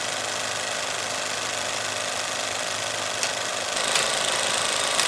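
Film projector running: a steady mechanical clatter over a hiss and a low hum, with a few sharp clicks in the second half and a slight rise in level near the end.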